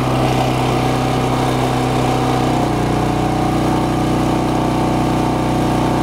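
Westinghouse WGen3600DF open-frame generator's single-cylinder engine running steadily; about two and a half seconds in its note shifts as the microwave load comes on and the engine settles into working under it.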